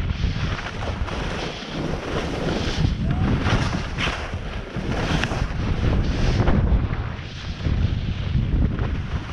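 Wind buffeting the microphone of a skier's head-mounted camera during a fast run, with the hiss and scrape of skis on hard, chopped-up snow surging with each turn.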